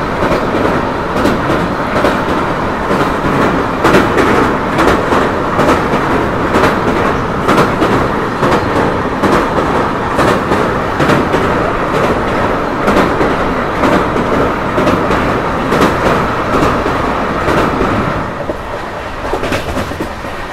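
Passenger train running at speed over a bridge, heard from an open coach door: a dense rumble with an irregular clatter of wheels over rail joints. It quietens near the end as the train comes off the bridge onto ballasted track.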